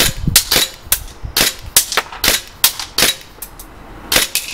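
ICS BLE XAE gas blowback airsoft pistol running on green gas, fired semi-automatic as a string of about a dozen sharp shots, roughly three a second at an uneven pace, each shot with the slide cycling.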